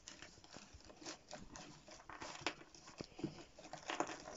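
Cardboard jigsaw puzzle pieces faintly rustling and clicking against each other as a completed puzzle is folded over by hand and its pieces start to pull apart, the clicks coming more often toward the end.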